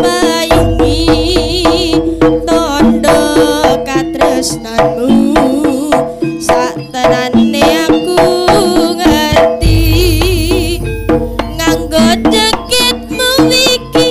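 Live Javanese jaranan ensemble playing an instrumental passage: kendang hand drums beating a fast, busy rhythm under a wavering melodic lead. Two long deep booms sound, one about half a second in and another near ten seconds in.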